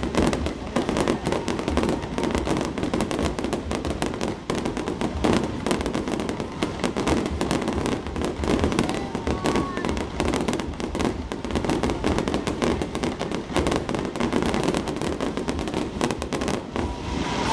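Fireworks barrage: many shells bursting in quick succession, a continuous dense crackle of bangs. The bangs thin out just before the end.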